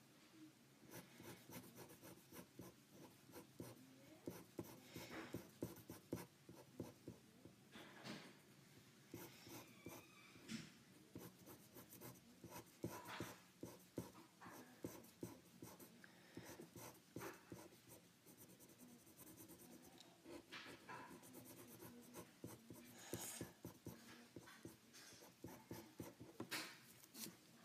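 Sharpie marker tip scratching across paper in many short, quick, irregular strokes as it inks lines and colours in; faint.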